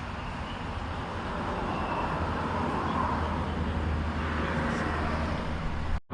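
Steady outdoor vehicle noise: a low hum under a rushing haze, slowly growing louder, cut off abruptly at the very end.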